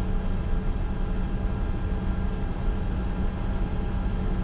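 Steady cockpit noise of a Bombardier Challenger 605 on the ground: its turbofan engines at idle with air rushing through the cabin vents, a constant low hum carrying several steady tones.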